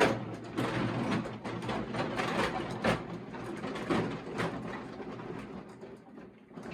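Irregular knocks and clatter, as of tools or parts being handled and moved about, with sharper knocks about three and four seconds in.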